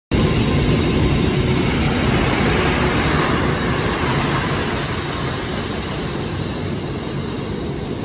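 Basic oxygen steelmaking converter flaring at its mouth: a loud, steady rushing noise over a deep rumble, with a higher hiss swelling about three to four seconds in as the flames and sparks build.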